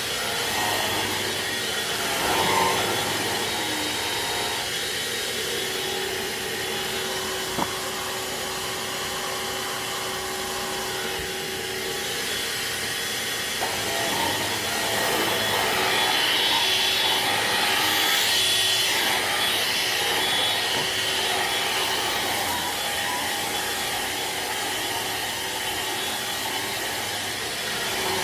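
Hoover Air Cordless stick vacuum running on its carpet setting: a steady motor whine over the rush of airflow, growing a little louder past the middle as it works the floor. A single sharp click sounds about a quarter of the way in.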